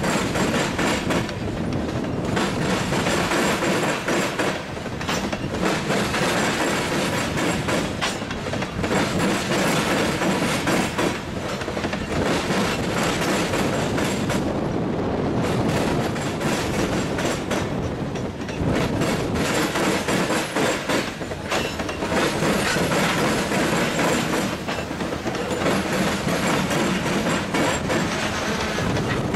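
Freight train of covered hopper cars rolling past, a steady rumble of steel wheels on rail broken by repeated clicks and knocks as the wheels pass over the track.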